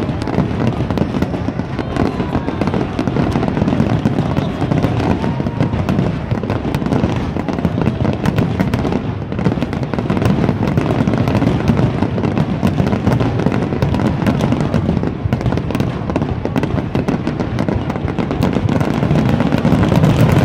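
A fireworks barrage with many shells bursting at once, giving a continuous dense crackling with bangs mixed in and no break.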